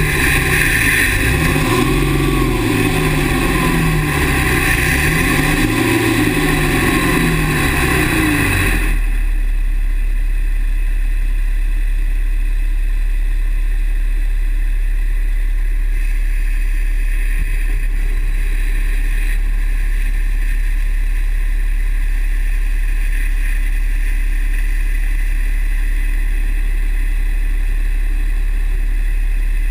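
2009 Dodge Ram's 6.7 L Cummins turbo-diesel running, its pitch shifting up and down. About nine seconds in the sound changes abruptly to a steady low drone.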